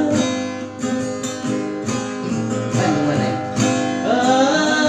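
Music: acoustic guitar playing a melodic instrumental passage between sung lines of a song.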